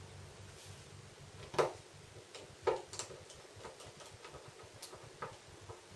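A handful of light, irregular clicks and taps from tiny screws, a precision screwdriver and the Galaxy S3 i9300's plastic cover being handled and pressed. The two loudest come about one and a half and two and a half seconds in.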